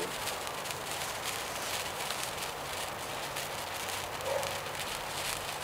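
Lit gold sparkler on a wooden stick burning: a steady crackling hiss of many tiny sparks.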